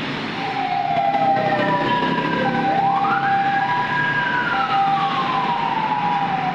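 A vehicle siren wailing over busy road traffic: a tone falling slowly, then sweeping up a little before halfway, holding, and falling slowly again.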